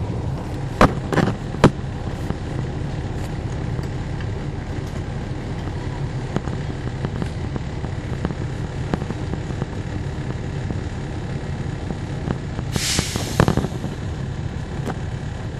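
Cummins ISL9 inline-six diesel of a NABI 40-foot transit bus running steadily, heard from on board. There are three sharp knocks about a second in and a short burst of air hiss about 13 seconds in.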